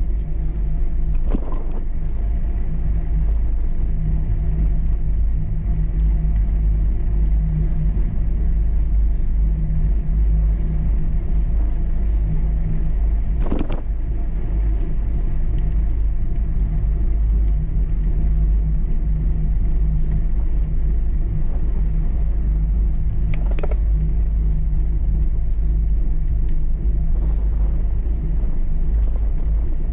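Wind buffeting the microphone and tyre rumble from a bicycle riding along a paved cycle path make a loud, steady low rumble. A few short knocks cut through it.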